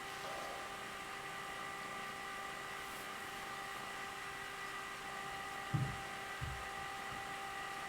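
A steady electrical-sounding hum with several fixed high tones, and two soft low thumps close together about six seconds in.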